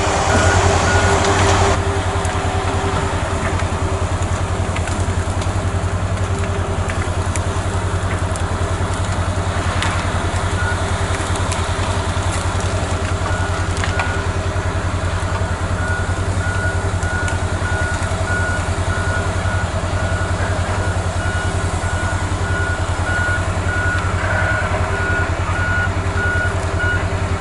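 Diesel engines of heavy logging machinery running steadily, with a backup alarm beeping repeatedly from about halfway through as a machine reverses. A brief loud hiss in the first couple of seconds.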